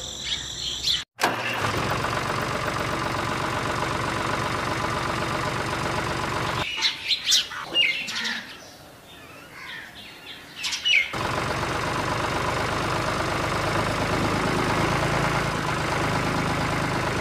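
Small electric motor of a miniature DIY toy tractor running steadily in two stretches, with birds chirping in the quieter gap between them.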